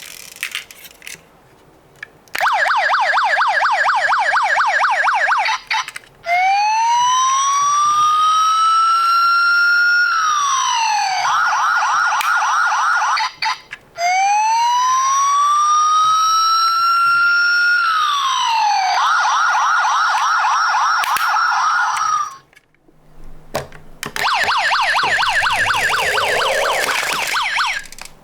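Electronic police-car siren: a fast warbling yelp, then twice over a wail that rises, drops and breaks into a rapid yelp, with another fast yelp near the end and short breaks between the sections.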